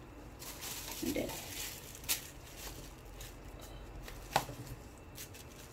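Wooden spatula mashing and working soft-cooked rice in an aluminium pot for rice balls: soft squashing and scraping, with two sharp knocks about two and four and a half seconds in.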